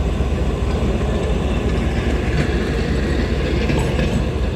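A train running on the track: a steady low rumble with no horn sounding.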